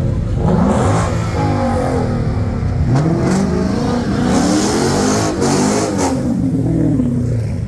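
Car engines accelerating hard in a street race, their pitch climbing and dropping repeatedly as they run through the gears, with more than one engine heard at once. A few sharp cracks sound partway through.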